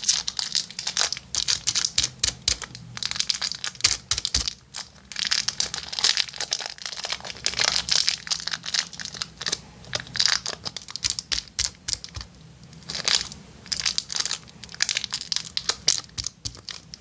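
Plastic packaging of a small pack of iClay lightweight clay crinkling and rustling in irregular crackly bursts as it is handled and the clay is taken out.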